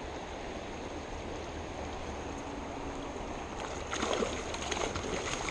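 Fast mountain stream rushing steadily, with a short burst of irregular splashing in the water near the end.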